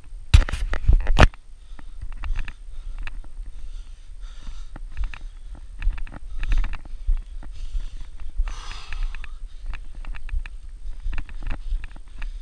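A climber on a steel tower ladder, heard close up: sniffing and breathing, with light clicks of hands and shoes on the metal rungs. A cluster of loud knocks comes about half a second in, and a low rumble runs underneath.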